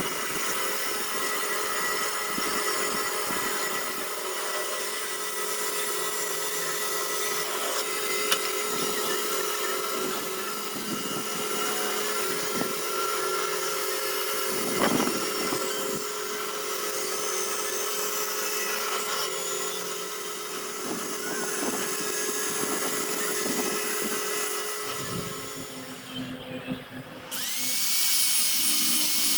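A handheld power tool running steadily as it works wood. Near the end it drops off briefly, then a tool spins up again with a rising whine.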